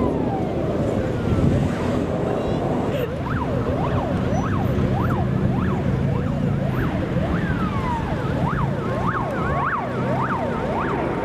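Jet noise from a pair of twin-engine Sukhoi fighters flying overhead: a steady rumble with a whine that falls in pitch at the start, then keeps sweeping up and down, about twice a second.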